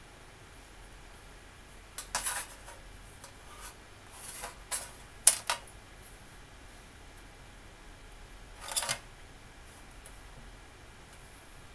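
A few sharp clicks and short scrapes of a phone logic board and small tools being handled in an aluminium tray, scattered over several seconds; the loudest is a pair of clicks about five seconds in, with a brief scrape near nine seconds.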